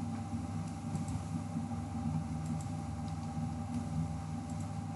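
Steady low hum with a thin, constant whine above it, and a few faint, scattered clicks from working a computer's mouse and keys.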